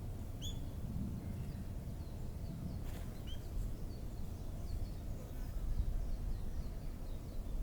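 Small songbirds chirping outdoors: a couple of clear short bending notes and then a quick run of faint high chirps, over a steady low rumble of outdoor background noise. There is one sharp click about three seconds in.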